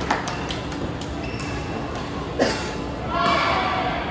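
Crowd chatter echoing in a large hall, with scattered short knocks and thuds; one sharper knock comes about two and a half seconds in.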